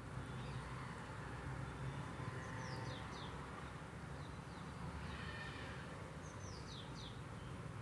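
Hot oil sizzling faintly as a wheat-flour poori deep-fries and puffs up. A bird calls twice, each time a quick run of two or three falling high chirps, a few seconds apart.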